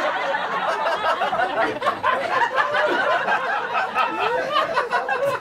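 Audience laughing loudly and continuously, many voices together.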